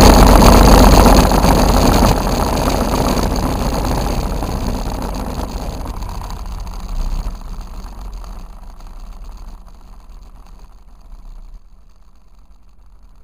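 Powered parachute engine running, loud at first and fading steadily over about twelve seconds.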